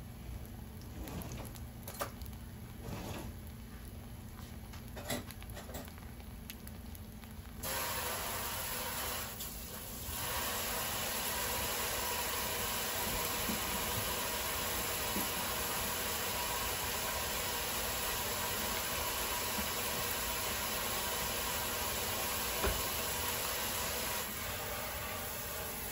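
Food sizzling in hot oil in a pan: a steady frying hiss that starts suddenly about eight seconds in and keeps going, after a few light clicks and knocks.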